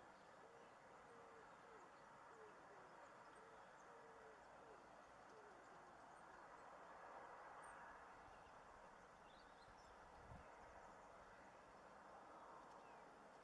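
Near silence with faint outdoor ambience: a pigeon cooing softly in a repeated low phrase during the first few seconds, a few faint high bird chirps, and a brief low bump about ten seconds in.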